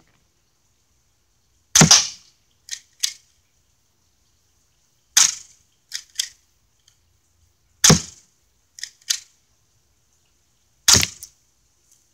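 Airsoft shooting: four sharp cracks about three seconds apart, each followed roughly a second later by two fainter clicks.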